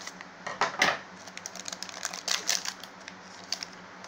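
A foil Pokémon booster pack being torn open and handled: a quick run of crisp crinkling and crackling rustles, loudest about a second in, easing off near the end.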